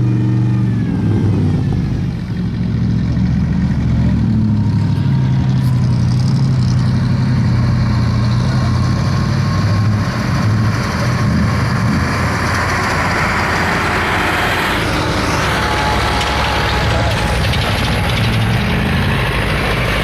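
Stock gas pickup truck engine running hard and steady, with a rougher, noisier sound building from about twelve seconds in.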